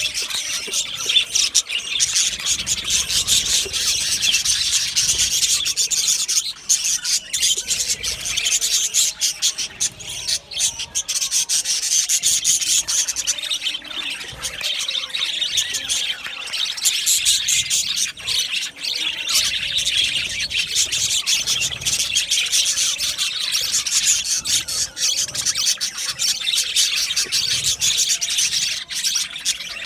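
A flock of budgerigars chattering and chirping all at once in a dense, continuous twittering, with many short clicks and trills.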